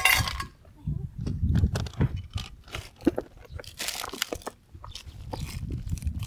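Handling noise close to the microphone: irregular clicks, light knocks and dull bumps of things being picked up and set down.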